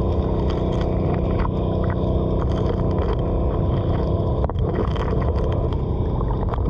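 Small gas engine and pump of a 2.5-inch suction dredge running steadily, heard underwater through the water and the hose. Gravel clicks and rattles as the nozzle sucks up streambed material.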